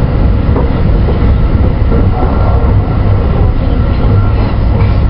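JR West 223 series 2000-subseries electric train running along the line: a steady, loud running noise of wheels on rail, strongest in the low range.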